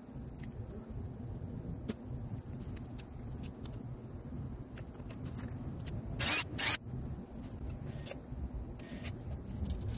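Hand work on a cable and clamp: scattered small clicks and handling knocks over a steady low rumble, with two short loud hissing bursts close together a little past the middle and a weaker one near the end.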